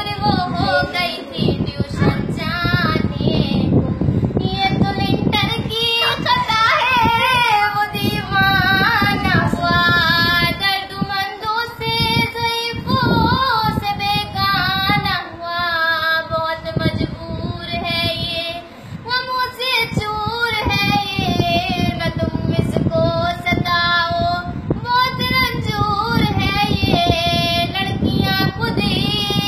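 A young girl singing verses solo without accompaniment, her voice holding long notes that bend in pitch.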